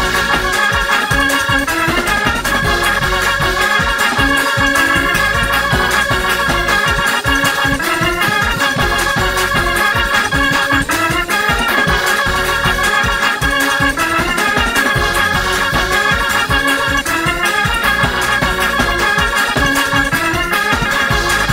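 Organ playing fast, upbeat praise music with a dense, pulsing low end.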